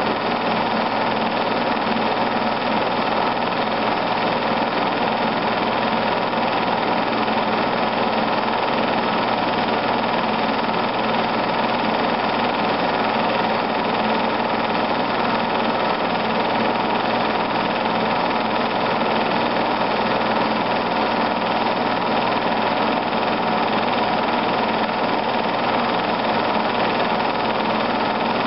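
Film projector running, a steady, unchanging mechanical noise throughout, heard in place of any sound from the filmed scene.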